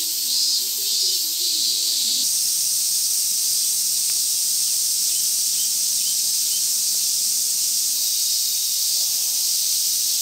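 Cicadas droning steadily, a high hiss-like buzz, with a few faint short chirps about five seconds in.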